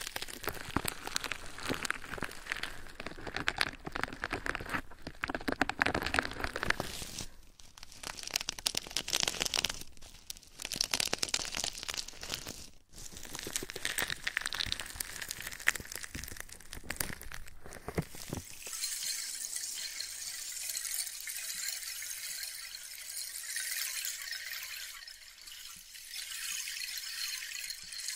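Close, irregular crinkling and crackling from ASMR triggers worked right at a 3Dio binaural microphone. About 18 seconds in it gives way to a steady high hiss like running water.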